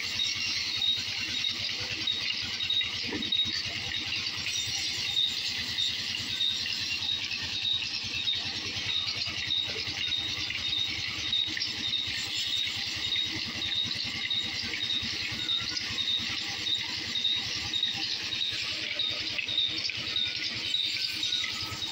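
Large vertical band saw running and cutting through a log fed by hand: a steady high hiss of the blade in the wood, with a light tick about twice a second.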